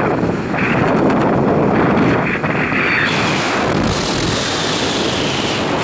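Wind rushing and buffeting over a helmet-mounted camera's microphone during a skydive, loud and steady, turning hissier about three seconds in.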